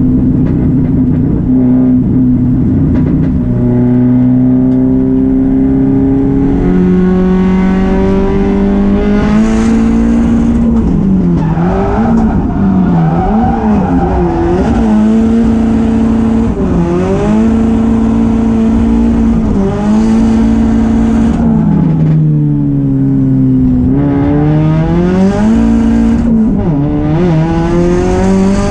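Hyundai Genesis Coupe drift car's engine heard from inside the cabin, revving hard and rising and falling over and over with the throttle through a drift run. Tyre squeal comes in at times.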